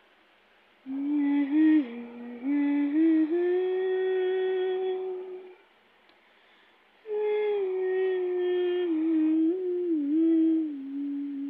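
A woman humming a slow melody without accompaniment, in two long phrases of held notes that glide from one to the next. The first phrase starts about a second in and the second about seven seconds in, with a short pause between them.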